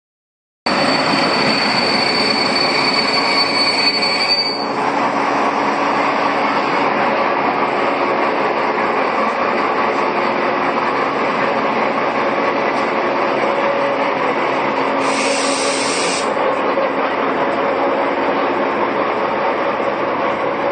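Diesel railcar's engine running steadily while the train stands at the platform, with a high steady whine that stops about four and a half seconds in. A short hiss sounds about fifteen seconds in.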